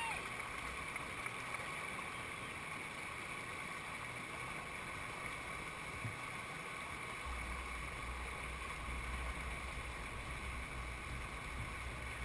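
Steady rush of whitewater pouring over a rock ledge into a standing wave, heard close to the water. A low rumble joins about seven seconds in.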